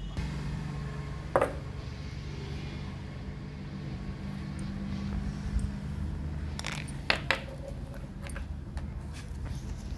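Handling knocks and clicks of a black plastic spray-paint can cap on a wooden table: one sharp knock about a second and a half in and a short cluster of clicks around seven seconds, over a steady low hum.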